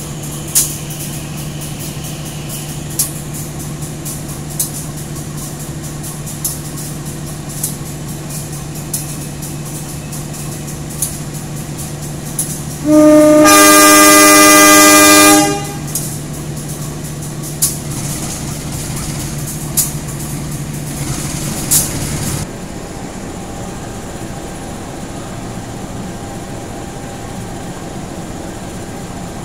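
Diesel-electric locomotive idling with a steady low hum, then one long, loud horn blast of about two and a half seconds, about 13 seconds in: Semboyan 35, the driver's signal that the train is about to depart. Scattered sharp clicks sound over the idle, and the hum stops abruptly about 22 seconds in.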